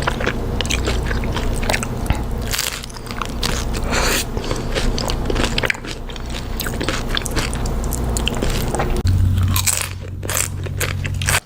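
Close-miked crunching and chewing of loaded nachos: tortilla chips cracking between the teeth in quick, irregular crunches.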